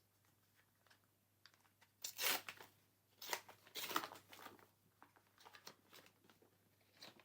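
A foil trading-card booster pack being torn open and its wrapper crinkled, in a few crackling tears about two seconds in, then lighter crinkling.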